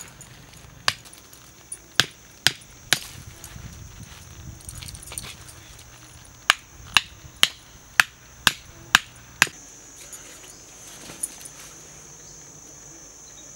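Sharp knocks: a few irregular ones, then a run of seven evenly spaced at about two a second, like steady hammering or chopping. A steady high insect drone sits underneath.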